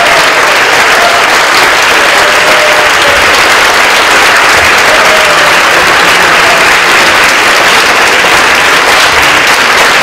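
Audience applauding: sustained, steady clapping from a room full of people at the end of a speech.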